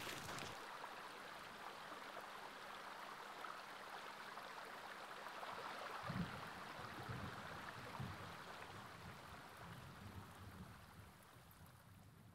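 Shallow stream water running over pebbles, a faint steady rush. From about six seconds in, soft low thuds join it, and the sound fades away near the end.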